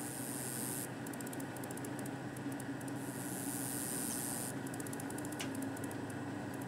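A diesel freight locomotive, a GE ES44AC, running steadily as it approaches, heard as a low hum that builds slowly. A high hiss of insects swells and drops away a couple of times over it.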